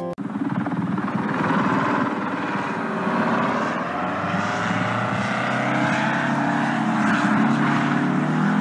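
V-22 Osprey tiltrotor's turboshaft engines and proprotors running close to the ground, a steady dense rotor noise with a whine that wavers up and down in pitch, as the aircraft goes out of control and crashes.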